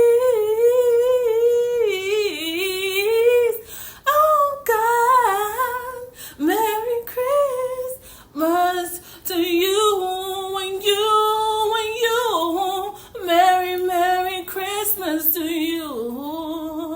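A woman singing unaccompanied, holding long notes with vibrato in phrases broken by short pauses for breath.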